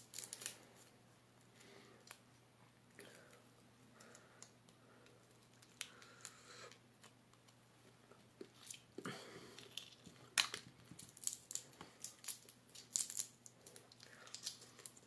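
Cooked lobster shell being cracked and picked apart by hand: scattered small cracks, snaps and clicks, coming more often in the second half.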